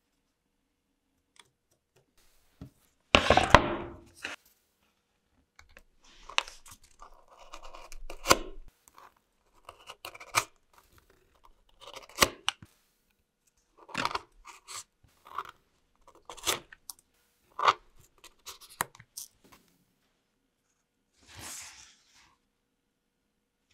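A utility knife blade cutting through a cowhide leather strip on a cutting mat in a series of short, separate strokes. A louder rasping burst about a second long comes about three seconds in.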